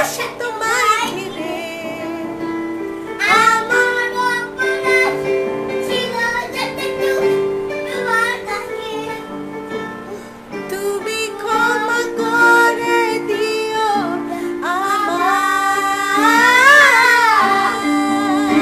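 A young child singing a song to piano accompaniment, the voice sliding up and down between held notes over sustained chords.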